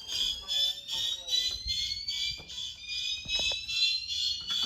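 Several fire alarm notification appliances sounding together after a manual pull station is activated: horns pulsing about two and a half times a second over a slowly rising whoop tone. A few sharp clicks come about three seconds in.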